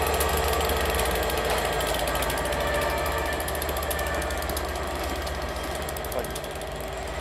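Class 67 diesel locomotive's EMD two-stroke V12 engine pulling a train away, a steady rapid throbbing beat with a deep hum that slowly fades as it recedes.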